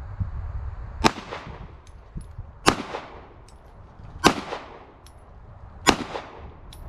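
Glock 43 9mm subcompact pistol firing four single shots, evenly spaced about a second and a half apart, each a sharp crack with a brief ringing tail.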